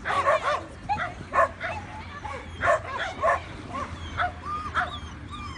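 A dog barking and yipping over and over in short, high-pitched yelps, about two a second with brief pauses.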